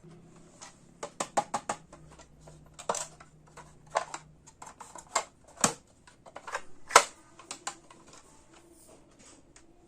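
Small plastic pieces of a miniature toy kitchen set clicking and tapping as they are handled, with a quick cluster of sharp clicks about a second in and the loudest click about seven seconds in.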